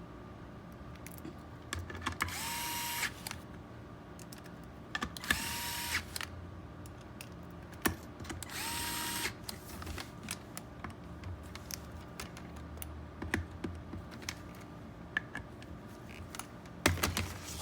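Cordless power drill run in three short bursts of under a second each, its motor spinning up quickly to a steady whine, as it drives screws during reassembly. Light clicks and knocks of parts being handled fall between the bursts, with a cluster of knocks near the end.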